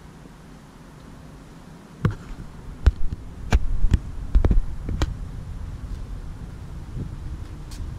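A run of dull thumps and knocks, about two a second, over a low steady rumble; the thumps start about two seconds in and stop about five seconds in.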